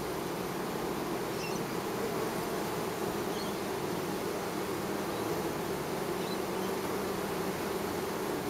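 A crowd of honeybees buzzing at a hive entrance, many flying close by: a steady, dense hum.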